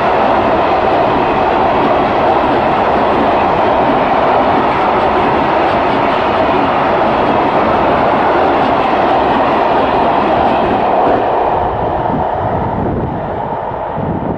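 Freight train of loaded Eas open wagons rolling past, a steady rumble and rattle of wheels on rail that eases off about eleven seconds in.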